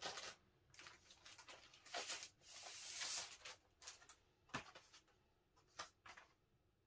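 Quiet handling of a cardboard LP record jacket: soft rustles and light taps, with a longer sliding rub of card about two and a half to three seconds in and a couple of sharper clicks near the end.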